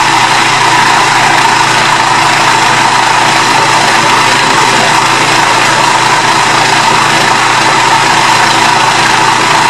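Countertop food processor motor running loud and steady as it blends a thick fish and red curry paste, then cuts off abruptly at the end.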